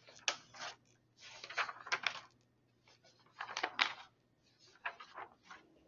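A few faint clicks and rustles, in small scattered clusters, from people moving and handling things in a quiet pause.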